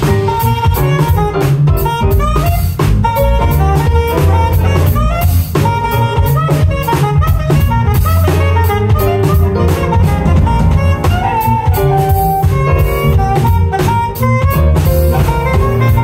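Live jazz band playing: a saxophone carries the melody over drum kit, bass and keyboards.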